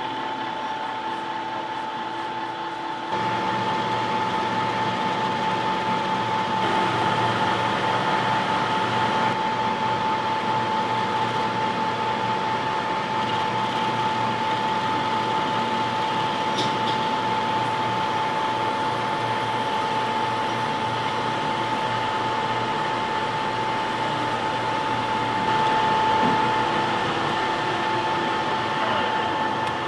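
Metal lathe running steadily with a constant whine, getting louder about three seconds in.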